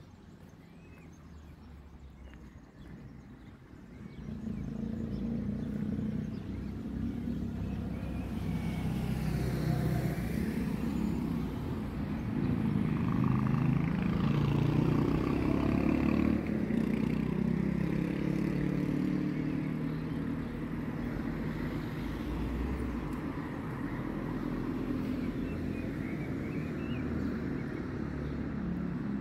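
Motor vehicle engine rumble, coming in about four seconds in and staying steady for the rest.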